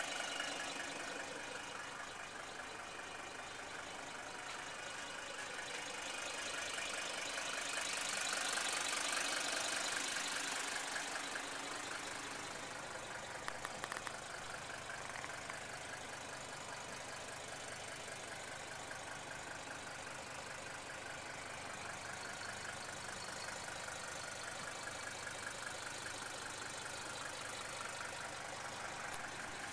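Mercedes-Benz 300D's five-cylinder diesel engine idling steadily.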